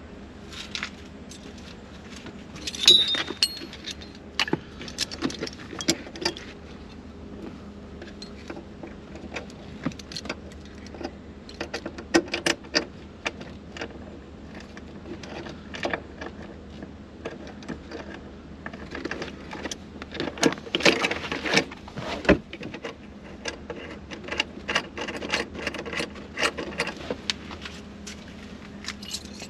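Metal mounting hardware for a racing harness, brackets and bolts, clinking and rattling in scattered bursts as it is handled and fitted at a car seat's floor rail, busiest about three seconds in and again around twenty to twenty-two seconds. A faint steady hum lies underneath.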